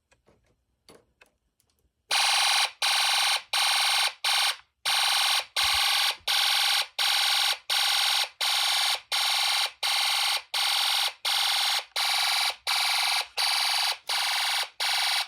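Snap Circuits homemade fire alarm panel's oscillator sounding a harsh, buzzy electronic alarm tone in even pulses, about three every two seconds, starting about two seconds in. It signals a supervisory condition set off on the panel.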